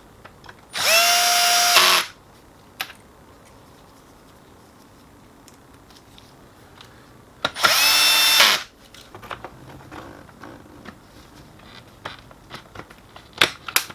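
Cordless drill-driver backing out two screws from the drum unit's end cap: two runs of its motor whine, about a second each and some six seconds apart. Light plastic clicks follow as the cap is worked loose.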